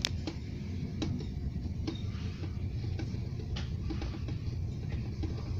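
Inside a moving suburban electric train: the steady low rumble of the train running on the track, broken by irregular sharp clicks, the loudest right at the start.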